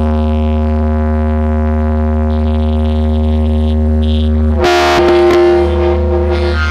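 Electronic DJ track played loud through a sound-check sound system: a heavy, constant bass under a held synthesizer chord, with a short hissing sweep about two-thirds of the way in.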